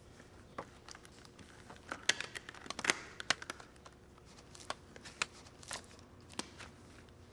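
Latex examination gloves being pulled onto the hands, crinkling and clicking. The crackle is densest about two to three and a half seconds in, followed by a few separate sharp clicks.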